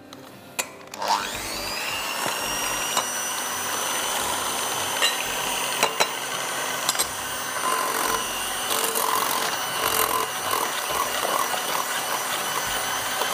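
Electric hand mixer switched on about a second in, its motor whining up to speed and then running steadily as the beaters whip eggs, oil and brown sugar in a glass bowl. The beaters clink sharply against the glass now and then.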